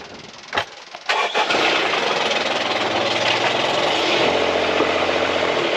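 Boat engine starting: a click, then it catches about a second in and runs steadily, its pitch settling slightly a few seconds later. It starts on the newly installed start and choke cables, showing they work.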